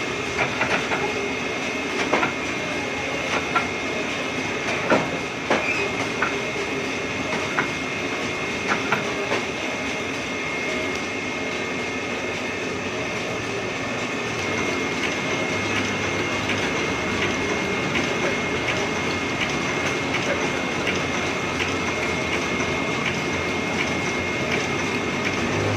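Heidelberg GTO 52 sheet-fed offset press running, a steady mechanical clatter with a constant high whine. Sharp clicks and knocks sound over the first nine seconds or so, and after that the running grows a little louder and steadier.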